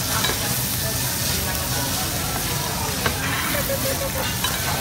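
Pork belly and bulgogi sizzling steadily in a hot round metal grill pan, with metal tongs stirring the meat and clicking against the pan a few times, most sharply about three seconds in.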